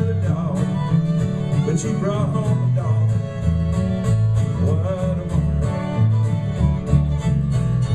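Acoustic bluegrass-style band playing live: strummed acoustic guitars with a steady beat, a walking bass line and a fiddle.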